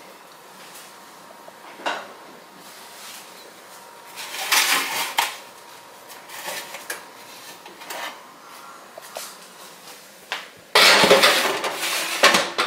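Metal baking sheets clanking and scraping along an oven's wire racks as they are slid in. There are scattered light clanks, a scrape about four and a half seconds in, and the loudest scraping clatter near the end.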